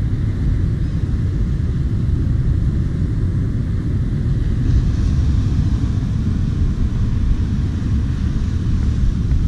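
Wind buffeting the microphone in a steady, loud low rumble, with the faint hiss of ocean surf beneath.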